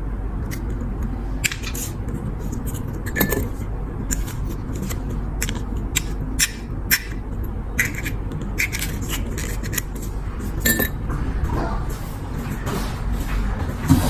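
Small hard clicks and scrapes, a dozen or more at irregular intervals, from metal lighter parts being handled and worked on, over a steady low hum.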